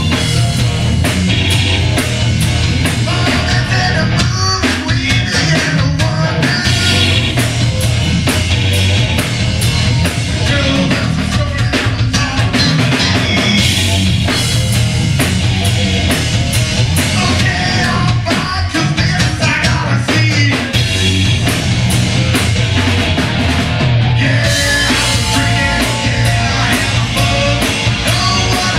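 Live rock band playing loud and steady: drums on a Ludwig kit with cymbals, electric guitar and bass guitar.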